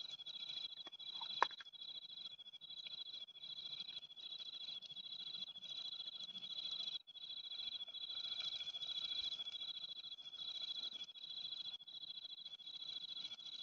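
Night-time chorus of calling insects: a continuous high trill with a second high chirp repeating about twice a second. A single sharp click about a second and a half in, from a small plastic container being handled.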